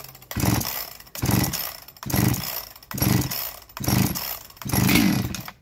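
Husqvarna 372XP two-stroke chainsaw's recoil starter pulled hard six times, about once a second, each pull whirring the engine over without it starting. The saw is a freshly rebuilt big-bore engine on its first start, its cylinder still wet with pre-lube oil.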